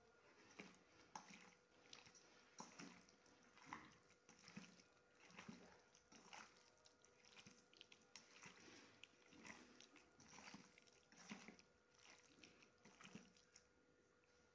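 Faint wet squelching of raw chicken pieces being mixed and squeezed by hand with spices and salt in a steel bowl, in repeated strokes roughly once a second.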